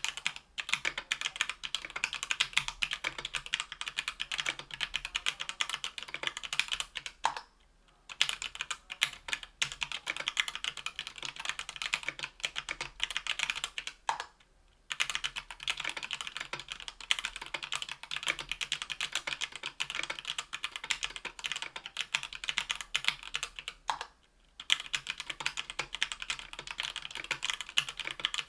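Fast continuous typing on stock, unlubed JWK H1 78g linear switches in a Tofu 60% aluminium keyboard with an aluminium plate and GMK keycaps. Dense rapid keystroke clicks, broken by three short pauses.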